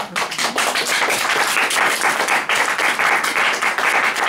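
Audience applauding, many hands clapping together in a dense, steady clatter.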